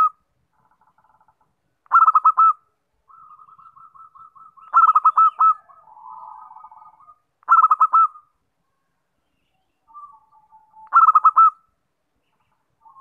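Zebra dove (perkutut) calling: four loud phrases of quick staccato coos, each about half a second long, come a few seconds apart. Softer rolling coos fill the gaps between them.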